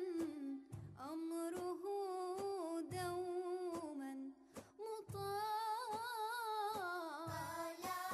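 Vocal music: a single voice singing a slow, wavering, ornamented melody, with a low drum-like beat about every two seconds.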